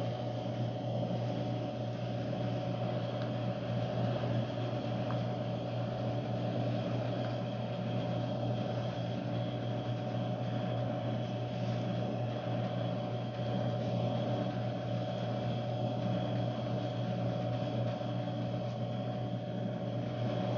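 Steady machine hum from a kitchen appliance or fan motor. It holds a low drone and a higher steady tone, unchanging throughout.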